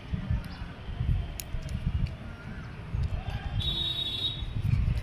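Uneven low rumbling and thumping on a phone microphone, with a brief high-pitched squeak about three and a half seconds in.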